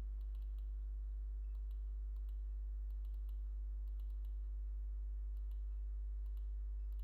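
A steady low electrical hum runs under faint, scattered computer mouse clicks as a file is opened and navigated in Excel.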